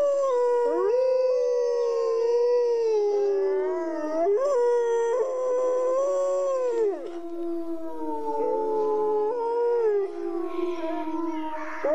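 Wolves howling in chorus: several long howls overlap, each held for seconds and sliding up and down in pitch.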